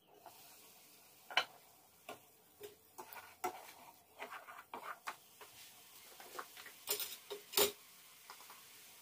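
A pot lid and a plastic spoon knocking and scraping against an aluminium saucepan as chopped onions are stirred: irregular light clicks, the loudest about a second and a half in and again near the end.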